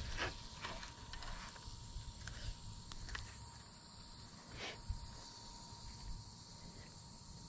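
Faint outdoor ambience with a steady insect drone and low wind rumble, broken by a few faint short clicks.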